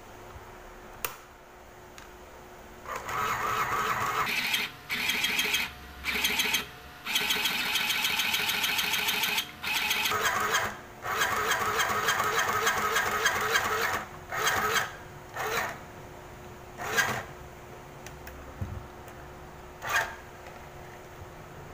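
Mini electric sewing machine test-stitching fabric: the needle mechanism runs with a fast, even rattle in several bursts starting about three seconds in, stopping and starting briefly between them. Near the end come a couple of short bursts and a few single clicks.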